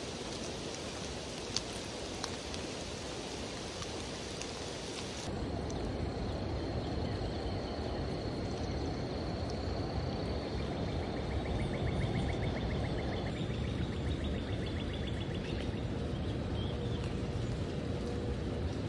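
Steady rain falling on leaves and water, with a few sharp drop ticks. About five seconds in, the sound cuts to a louder, deeper rushing. About ten seconds in, a faint, fast ticking runs for a few seconds.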